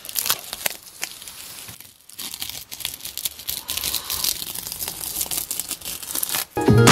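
Masking tape peeled off painted sneaker leather: a run of crackling and tearing, densest in the second half. Loud music cuts in right at the end.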